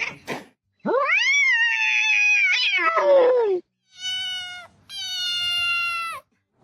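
A cat meowing: one long, drawn-out meow that rises, holds and then falls away, followed by two shorter, steadier meows.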